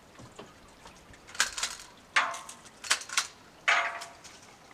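Pruning tools cutting branches in a pear tree: five or six sharp snips and clacks over about two and a half seconds, some with a brief metallic ring.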